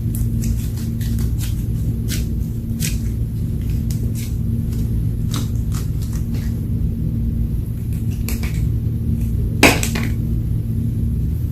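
Slime being worked by hand: scattered small clicks and pops over a steady low hum, with one louder crackle about ten seconds in.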